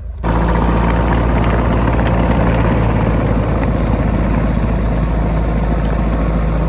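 Tucker Sno-Cat's Isuzu 4BD1T four-cylinder turbo diesel running loud and steady, cutting in suddenly just after the start.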